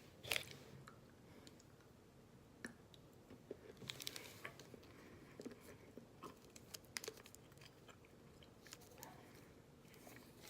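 A sharp snap as a piece is broken off a Bournville dark chocolate bar, then quiet chewing with scattered small clicks and crunches.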